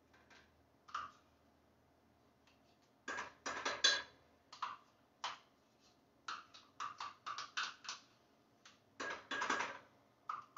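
A spoon scraping and clinking against a container and a small pan as thick cheese dip is scooped and knocked off into the pan. There is a single click about a second in, then from about three seconds in a run of short clicks and knocks in clusters.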